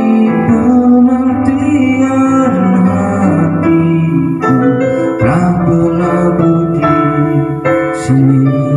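A man singing a song into an Ashley wireless handheld microphone, his voice amplified through a speaker over an instrumental backing track, with long held notes.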